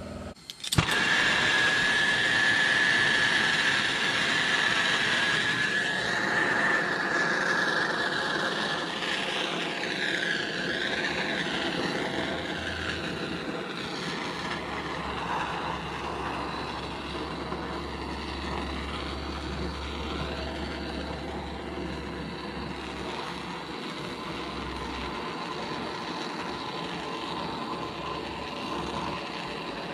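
A turbo torch fed from a 20-pound tank, scorching the surface of a carved wooden bear. A sharp click comes under a second in, then the flame gives a steady rushing hiss, with a wavering whistle in the first few seconds.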